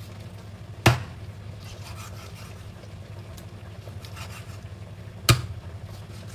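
Two sharp knocks of a kitchen knife striking a wooden cutting board, about a second in and again near the end, with a few faint light taps between, over a steady low hum.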